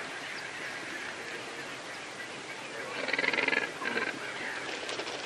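A bird gives a loud, harsh, buzzy call about three seconds in, followed by a second shorter one, over a steady background of outdoor ambience.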